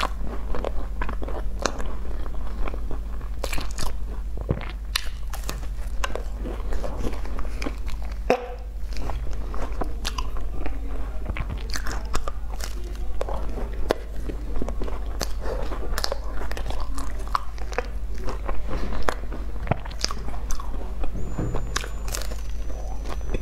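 Close-miked biting and chewing of a flaky sesame-topped pastry: the crust crunches and crackles in a dense run of small clicks, bite after bite.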